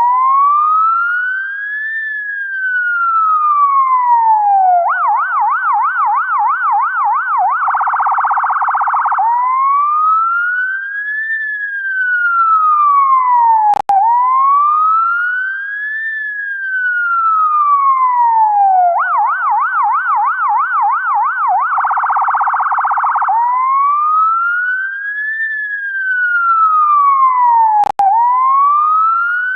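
UK ambulance electronic siren cycling through its tones. A slow wail rises and falls over about four seconds, then a fast yelp of about four sweeps a second, then a still faster warble, then the wail again. The cycle runs twice, with a brief click and dropout where it restarts.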